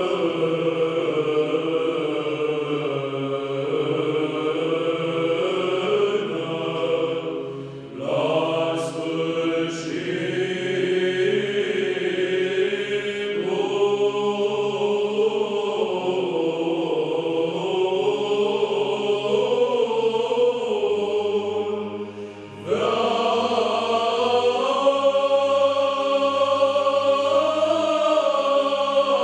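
Male choir singing Byzantine chant a cappella, the melody moving over a steady held low drone. The singing breaks off briefly twice, about eight seconds in and again about twenty-two seconds in, before the next phrase.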